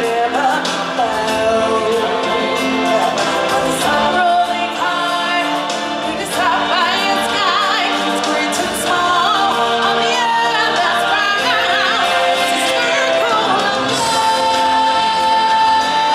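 Music with group singing over instruments; near the end one voice holds a long high note.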